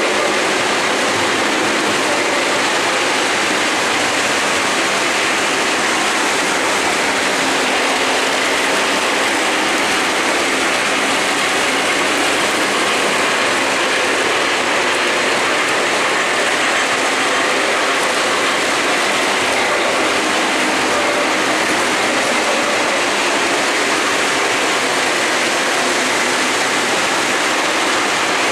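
O-gauge three-rail model trains running on the layout: a steady rolling noise of metal wheels on the track with the locomotives' motors.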